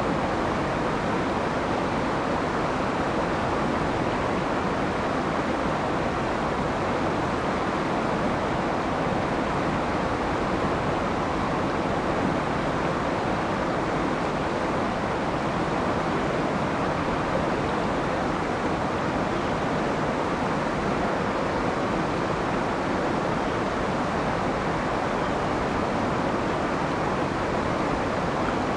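Shallow river running fast over rocks in a riffle: a steady, even rush of water.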